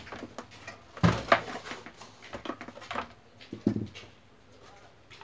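Plastic and metal housing of an electric stand mixer being handled and shifted on a workbench: a cluster of knocks and clatter about a second in, then a few lighter knocks.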